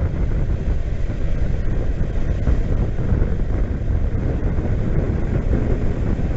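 Wind buffeting the camera microphone, with water rushing past, as a motorboat runs fast over open water: a steady, loud rumbling rush.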